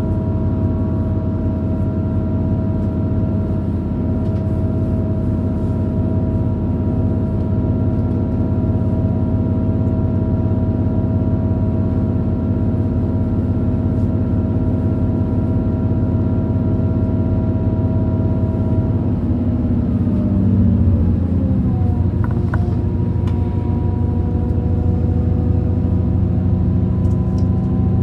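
Regional train running, heard from inside: a steady drone with several humming tones over a low rumble. About twenty seconds in the tones slide down in pitch and then hold steady at the lower pitch.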